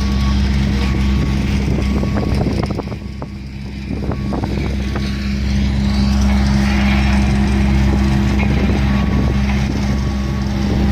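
Diesel engine of heavy construction plant running steadily, with a reversing alarm beeping at an even pace over it. Some crunching clicks come through part-way in.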